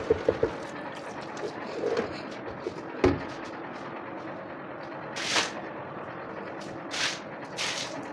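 Tap water running into a stainless steel bowl in the kitchen sink, with a few clinks of the bowl at the start. There is a single sharp knock about three seconds in, then three or four short, brisk swishes near the end.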